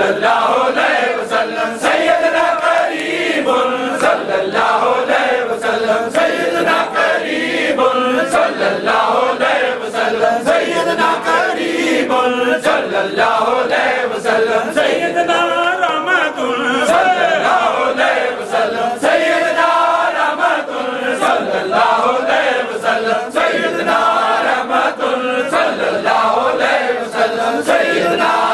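Zikr (dhikr): a group of men chanting together without pause, many voices at once.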